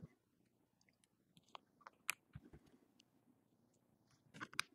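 Faint, scattered clicks and ticks of a razor blade working under the edge of a small plastic cover on a phone's back frame, with a quick cluster of louder clicks near the end.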